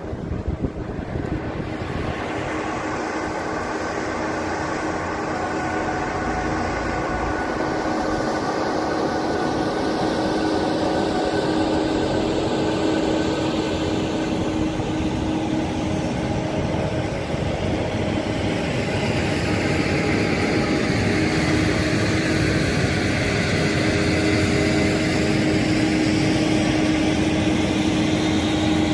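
Freight train of tank cars rolling past on the track: a steady rumble of wheels on rail with a held hum over it, slowly growing louder.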